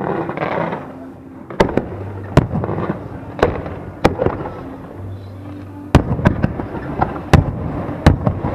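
Fireworks display: aerial shells bursting in a rapid string of sharp bangs, about eight in all, after a crackling rush at the start.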